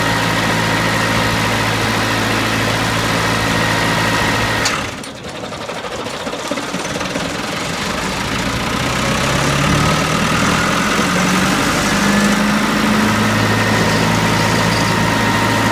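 Wood chipper's engine running steadily. About five seconds in there is a click and the sound drops sharply, then builds back up over several seconds with a rising pitch before settling into a steady run again.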